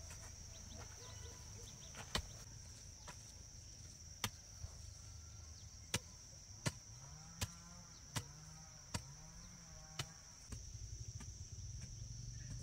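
Hand hoe blade chopping into dry, loose soil: a string of sharp, irregular strikes, about one a second.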